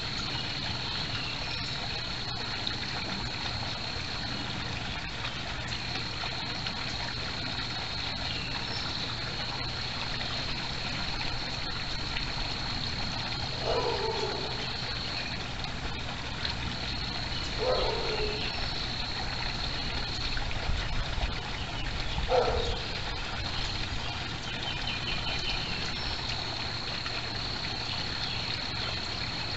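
Backyard koi pond's water trickling steadily. Three short calls, each falling in pitch, stand out about 14, 18 and 22 seconds in.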